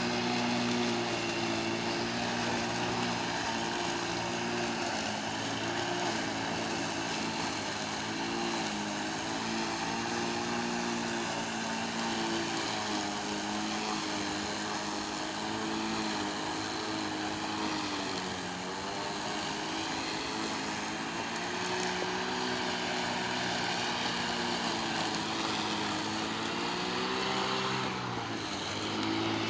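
Cordless battery walk-behind lawn mower's brushless electric motor and blade running as it cuts grass, a steady hum. Its pitch sags briefly several times as the blade slows under load in the grass, dropping deepest near the end, then recovers.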